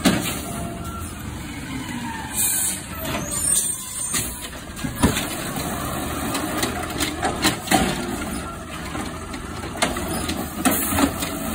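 Automated side-loader garbage truck with its diesel engine running, a short air hiss about two and a half seconds in. The hydraulic arm grabs a plastic recycling cart and lifts it to tip it into the hopper, with several sharp knocks from the cart and arm.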